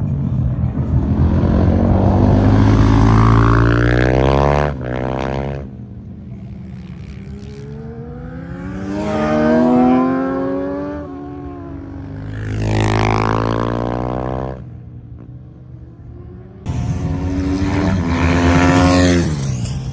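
Racing sport bikes passing at speed, one after another, each engine note swelling, bending in pitch and fading away as it goes by. The sound drops off abruptly about five seconds in and comes back suddenly near the end with another loud pass.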